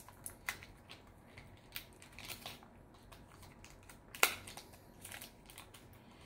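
Plastic candy wrapping crinkling and crackling on and off as it is picked at, with one sharp click about four seconds in.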